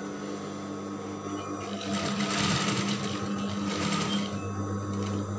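Electric sewing machine running as it stitches a seam along a folded fabric strip, its motor humming steadily, with the stitching noise growing louder in two spells about two and four seconds in.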